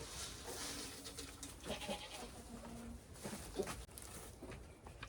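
Faint goat bleats, a few short calls with one held a little longer midway.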